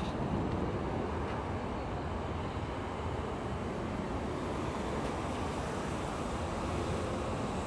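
Steady, even outdoor rumble of distant traffic, with wind on the microphone.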